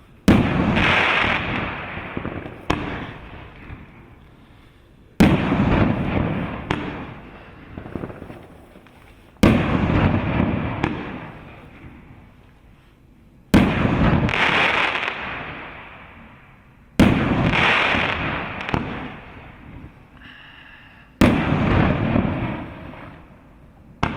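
A 19-shot, 2-inch consumer fireworks cake firing. Six aerial shells burst sharply about every four seconds, each break followed by a fading tail of rumble and crackle.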